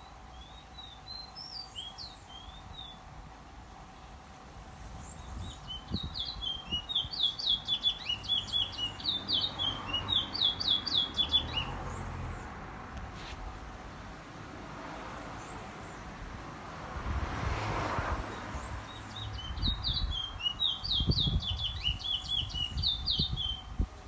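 A caged songbird singing: a few short chirps at the start, then two long bouts of rapid, high, repeated notes, the first from about five seconds in and the second near the end. Between the bouts a rushing noise swells and fades.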